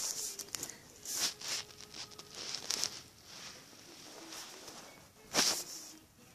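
Irregular rustling and scuffing noises in short uneven bursts, with a louder burst about five and a half seconds in.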